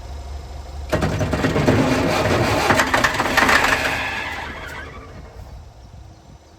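Old Leyland truck diesel engine being cranked by its starter motor for about four seconds, starting suddenly about a second in and dying away without firing, over a steady low hum.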